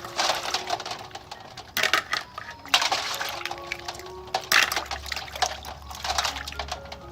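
Snail shells clicking and clattering against each other in a basin as a handful of snails is handled and washed, with a few loud clatters among many small clicks. Soft background music runs underneath.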